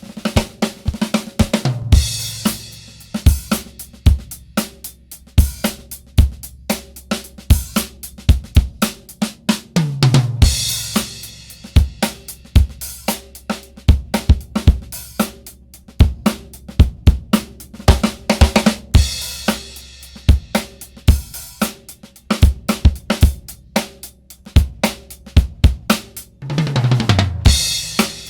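Drum kit groove with kick, snare and hi-hat, played through a MOTHER VIVID 3-band 500-series EQ. Cymbal crashes and short runs of drum hits falling in pitch come about two seconds in, about ten seconds in and near the end.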